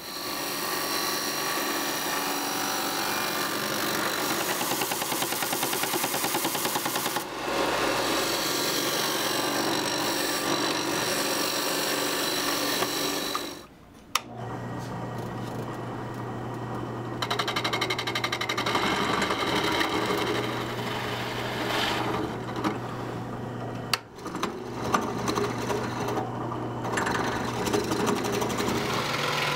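Handheld power tool running continuously with a steady buzz. It stops briefly about halfway through, then runs again with a steady low hum, dipping for a moment near the two-thirds mark.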